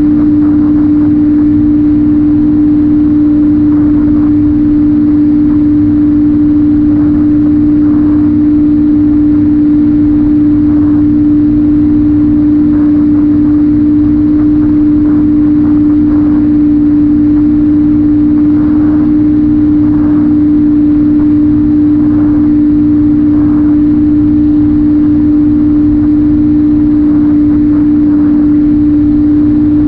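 Electric motor and propeller of a Ranger2400 RC plane running at a constant throttle, heard from the camera mounted on the plane: a loud, even hum at one pitch that does not change speed.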